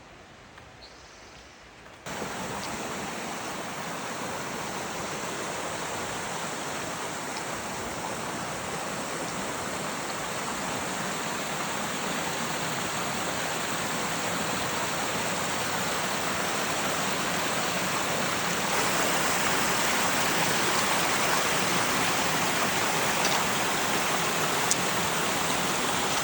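Stream water running: a steady, even rush of flowing water that starts abruptly about two seconds in, slowly grows louder, and steps up again near the end.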